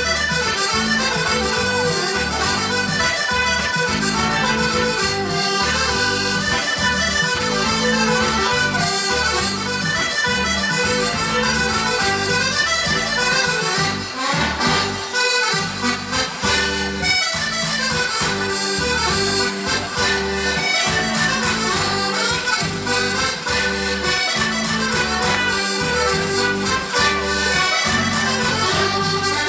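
Chromatic button accordion playing an instrumental melody over a steady bass and beat accompaniment. The bass drops out for a moment about halfway through.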